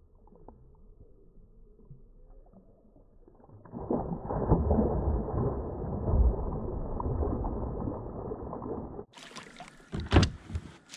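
Chain pickerel blowing up on a topwater lure beside a kayak, heard slowed down: a deep, muffled rush of splashing water starts about four seconds in and lasts some five seconds. Near the end the sound cuts to normal speed, with a few sharp splashes at the surface.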